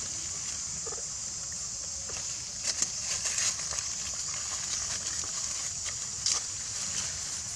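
Outdoor ambience: a steady high hiss with a low rumble underneath, and a few brief crackles or rustles about three seconds in and again near six seconds.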